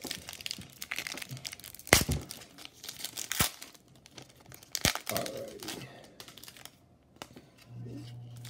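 A foil trading-card pack wrapper being crinkled and torn open by hand, with sharp snaps about two and five seconds in. Near the end a low steady hum starts.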